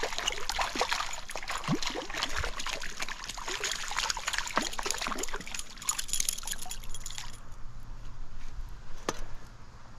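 Water splashing and spattering close to the microphone, with many small sharp splashes, easing off about seven seconds in.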